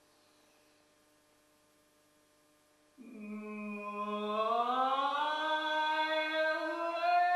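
A faint steady hum, then about three seconds in a wordless voice comes in on one long held note that slides slowly upward and levels off, like a chant.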